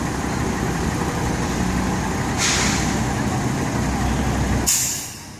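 Heavy truck engine idling, with two short hisses of air about two and a half and four and a half seconds in. The low engine sound drops away briefly near the end.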